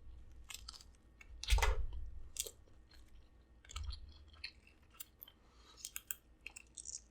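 A person chewing food close to the microphone, with a scatter of short crunches and mouth clicks. There are two low thumps, about a second and a half in and near four seconds.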